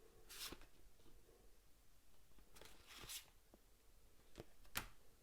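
A handful of faint, short rustles and taps of game cards being handled and laid down one after another.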